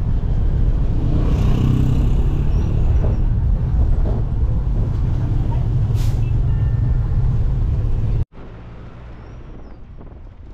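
Steady low engine and road rumble heard from inside a moving vehicle, with a brief hiss about six seconds in. About eight seconds in it cuts off suddenly to quieter wind noise.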